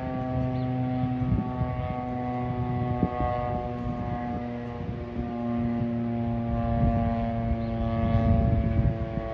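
Federal Signal STH-10A fire siren sounding at full wind, holding a steady chord of several tones. The pitch sags slightly about halfway through, with a low rumble underneath.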